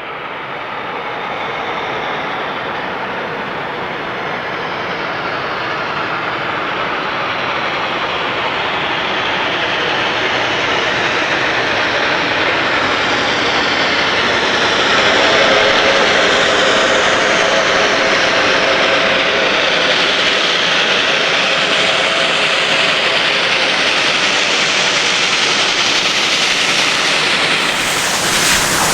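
Steam locomotive Reading & Northern 425 working hard: a loud, steady roar of exhaust and running gear that grows louder through the first half. The sound changes abruptly near the end.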